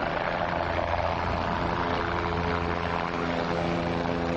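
Light helicopter flying low and banking hard, its rotor and engine giving a steady drone with several level tones underneath.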